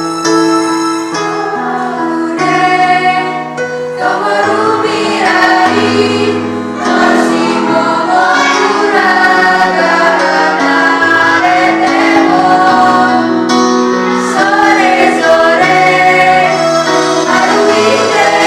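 A school vocal group singing in unison, all on one melody line, over an instrumental accompaniment. The accompaniment plays alone at first and the voices come in about four seconds in.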